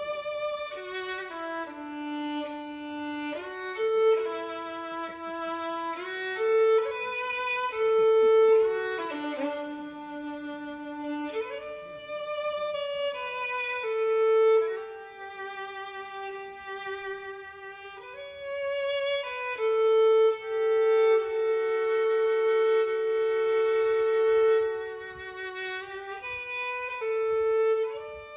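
Slow instrumental background music: a single bowed-string melody, likely violin, played in long held notes with vibrato.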